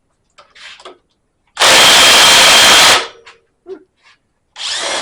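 A 3/8-inch impact wrench hammering on the pinion nut of a GM 8.5 rear axle for about a second and a half, breaking the tight nut loose. Brief small handling sounds come before it and near the end.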